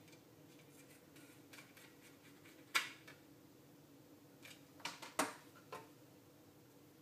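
Small sharp clicks and taps of a screwdriver and plastic instrument housing being handled during reassembly: one loud click a little under three seconds in and a quick group of three about five seconds in.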